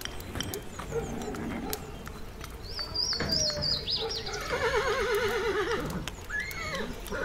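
A horse whinnying once, a long quavering call from about three to six seconds in, over a layered ambience of sharp crackles and clicks.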